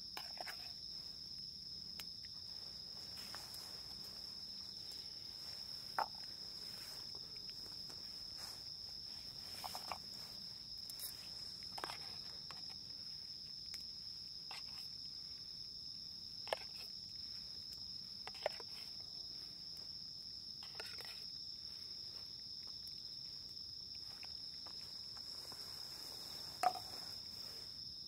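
Insects, likely crickets, trilling in one continuous high steady tone, with a few scattered sharp clicks and light taps over it.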